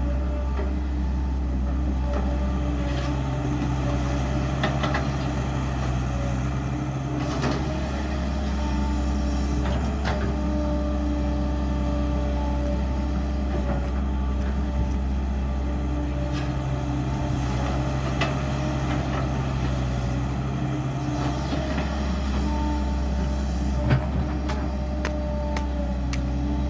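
Heavy construction machinery running steadily, its engine note strengthening and easing every few seconds as the load changes, with scattered clanks and knocks; one sharp knock near the end is the loudest.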